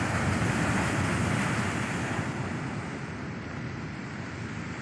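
Rough sea surf breaking and churning against a rocky seawall, a dense steady rush that eases slightly about two seconds in, with wind buffeting the microphone.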